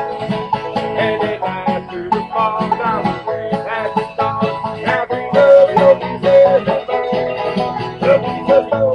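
Acoustic bluegrass band playing a tune, with fiddle, five-string banjo, acoustic guitar and mandolin together.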